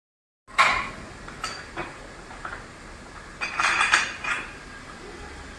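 Metal tools and fittings clinking and knocking on the metal lid of a cylinder hydrostatic test jacket: a handful of sharp clinks, with a quick cluster of them a bit past the middle.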